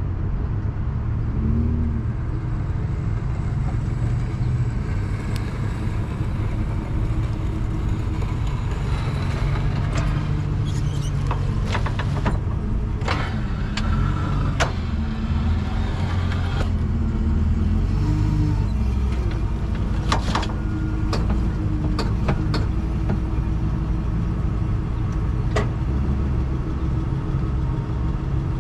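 Tow truck engine running with a steady low rumble while its wheel-lift is set under a car's front wheels and raised. A run of sharp metal clanks and clicks sounds through the middle, as the lift's arms and wheel chocks are fitted.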